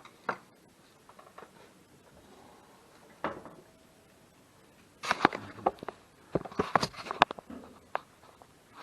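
Light clicks and knocks from hands handling parts and tools at a motorcycle during an oil change: a few single clicks, then two quick clusters of clattering about five and about six to seven seconds in.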